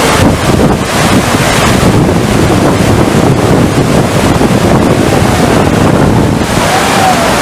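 FlowRider surf simulator's pumped sheet of water, a loud steady rush of water pouring over the ride surface, with wind buffeting the microphone.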